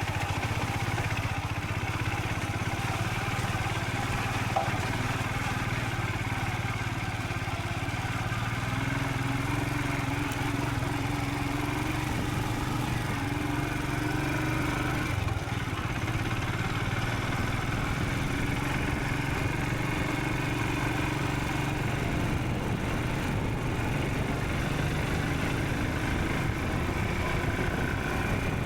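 Royal Enfield Scram 440's single-cylinder engine running steadily while riding, its note changing briefly about halfway through.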